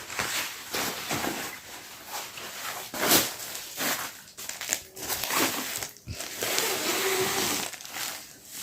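Plastic packaging crinkling and rustling as a parcel is unwrapped by hand, in uneven bursts of handling noise with a sharp crackle about three seconds in.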